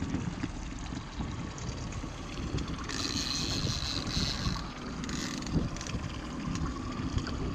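Wind buffeting the microphone and water slapping against the hull of a small aluminium fishing boat, with a brief hiss about three seconds in.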